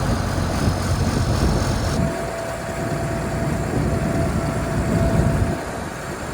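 Bulldozer's diesel engine running just after a cold start, a steady low rumble that eases off about five and a half seconds in. A thin steady whine sounds along with it from about two seconds in.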